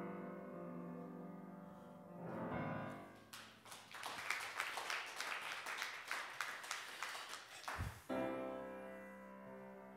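Piano chords ringing out and fading at the end of a hymn. From about three seconds in, a congregation applauds for several seconds. The applause stops and the piano starts playing again near the end.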